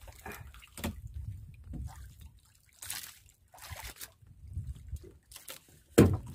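Sea water sloshing and trickling against a wooden outrigger boat, with scattered small knocks and rustles of handling and one sharp knock about six seconds in.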